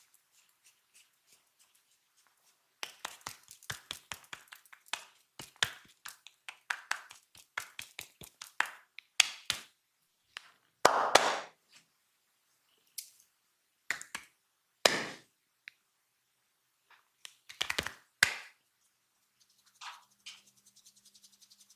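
Hand percussion massage: a fast run of sharp slaps and taps of hands on the body for several seconds. After that come a handful of louder single strikes, a few seconds apart.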